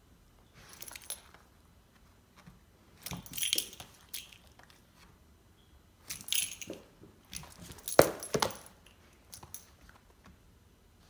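Metal ID tags on a dog's collar jingling in about five short bursts as the dog moves its head, the loudest clink near the end.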